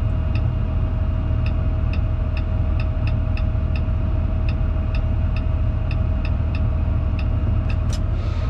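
Fendt 936 tractor's six-cylinder diesel running steadily, heard from inside the cab, with a steady whine over it. A quick, regular electronic ticking sounds about three times a second until near the end.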